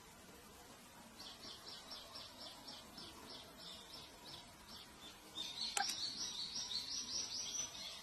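Thrush nestlings begging: rapid high chirps, about five a second, starting about a second in, then a louder, denser run of chirping from about five and a half seconds. A single sharp click sounds near six seconds.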